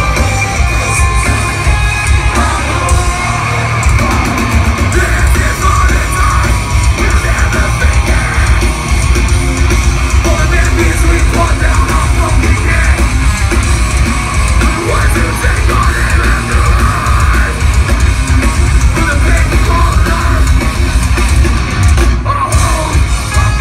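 Metalcore band playing live at full volume: heavy distorted guitars, pounding drums and yelled vocals in one dense, unbroken wall of sound, heard through a phone's microphone from within the crowd.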